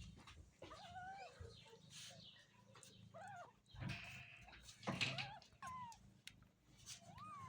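A cat meowing: several short, rising-then-falling meows a second or two apart.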